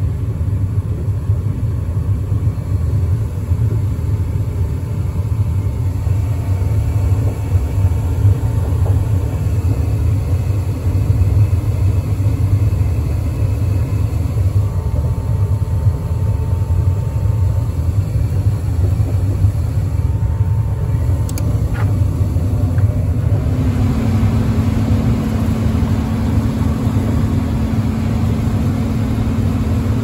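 Trane gas furnace running with its burners freshly lit: a steady, loud low rumble. Near the end a steady hum joins in, the blower motor coming on.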